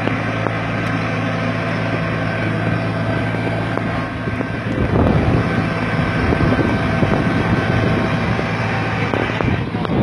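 Small tractor engine running steadily as it pulls a two-bottom plough through the soil, a steady low hum. About halfway through, a louder, rougher noise joins in over it.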